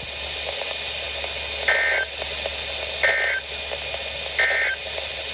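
Emergency Alert System end-of-message code on a weather radio broadcast: three short bursts of warbling two-tone digital data, a little over a second apart, over steady radio hiss.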